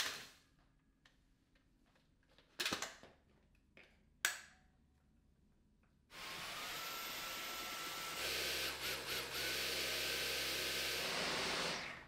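A few sharp clicks, then a Dyson Gen5detect cordless stick vacuum starts about halfway through with a short rising whine and runs steadily. A couple of seconds later it gets louder, its pitch dips briefly a few times, and it cuts off just before the end.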